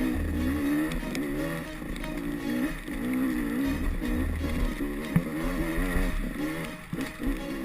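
Off-road enduro motorcycle engine running under load, its pitch rising and falling again and again as the throttle is worked.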